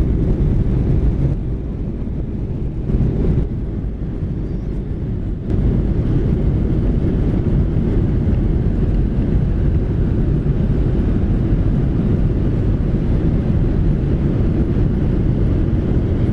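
Steady low rumble of engine and airflow noise inside a Boeing 737-800 cabin. It dips for a few seconds and then steps back up abruptly about five seconds in.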